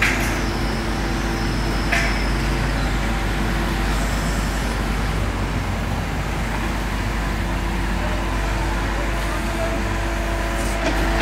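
Street traffic noise, steady and continuous, with a low engine hum that comes and goes. There are two short sharp knocks, one at the very start and one about two seconds in.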